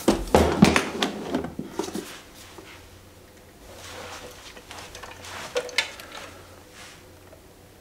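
Handling noise: a hard carrying case knocking and clicking as it is moved and set down, several sharp knocks in the first two seconds, then softer clicks and rustling as the model truck is lifted and handled.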